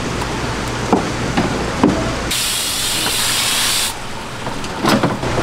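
A water spray hisses for about a second and a half, switching on and off abruptly. Around it come a few short knocks and scrapes of a cleaver on a wet wooden cutting board as flounder is cleaned.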